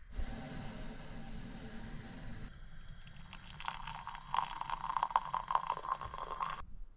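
Portable butane stove burner hissing steadily under a pot. About two and a half seconds in, hot tea is poured from a metal pot into a ceramic mug, a splashing, gurgling stream that cuts off suddenly near the end.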